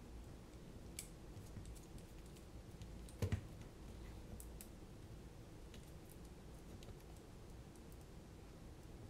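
Faint, scattered small clicks and ticks of screws and frame parts being handled while a drone's arms are fitted to its frame, with a louder knock about three seconds in.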